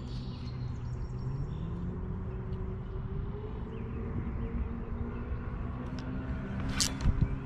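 A steady engine hum whose pitch rises slowly during the first few seconds, over a low rumble, with a short sharp click just before the end.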